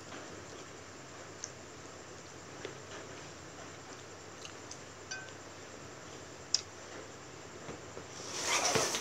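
A few faint clicks of wooden chopsticks against a wooden cutting board, one sharper click past the middle. Near the end comes a louder rustle, like tissue paper being handled.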